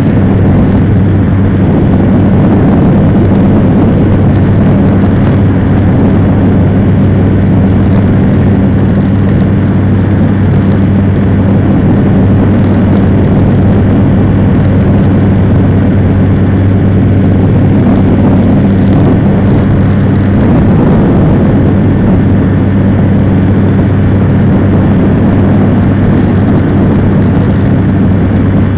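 North Wing ATF ultralight trike's engine and pusher propeller running steadily at a constant low pitch in flight, with a dense rush of air and propeller noise.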